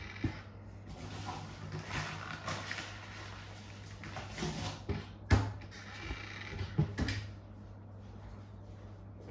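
A steady low hum under rustling and a few sharp knocks, the loudest about five seconds in and two more near seven seconds.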